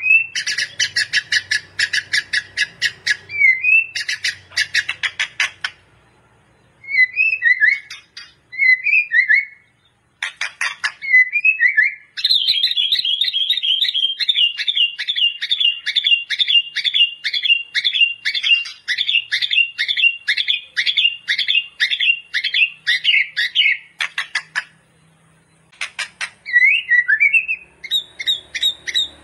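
White-rumped shama (murai batu) singing in full song. It gives rapid runs of short, sharp repeated notes, breaks into a few brief whistled phrases, then delivers a long fast rattle of repeated notes lasting about twelve seconds.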